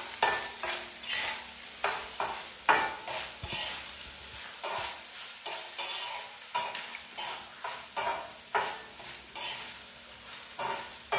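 A spatula stirring and scraping onions frying in a pan, about two strokes a second, over a light sizzle.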